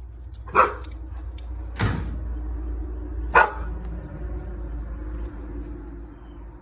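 A dog barks three short times, about a second and a half apart, which the owner takes to be alarm at a newly set-up backyard pool.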